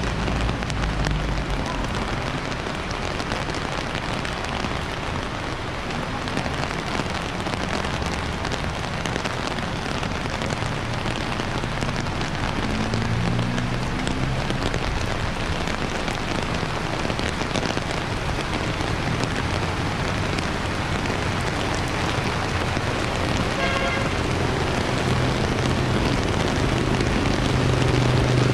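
Steady rain falling on the street, an even hiss throughout. Now and then a vehicle's engine hum passes on the wet road, loudest near the end.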